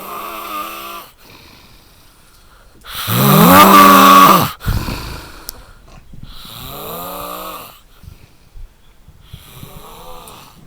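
A man snoring in his sleep: four drawn-out, rasping snores about three seconds apart, the second much the loudest.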